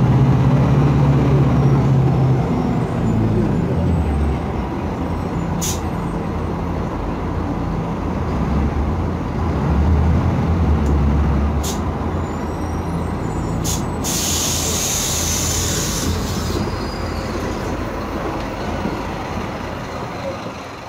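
Scania K250UB city bus with its Scania OC09 diesel engine running, a steady low drone throughout. About fourteen seconds in, a burst of compressed air hisses for a couple of seconds. A few sharp clicks sound along the way, and the sound fades near the end.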